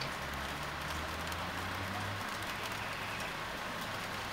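Steady outdoor background noise: an even hiss like light rain over a low engine-like hum, which weakens a little over two seconds in.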